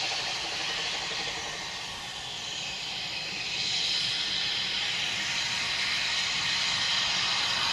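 Narrow-gauge steam locomotive No. 12 Joan, a Kerr Stuart 0-6-2 tank engine, approaching with a steady hiss of steam that grows louder about halfway through.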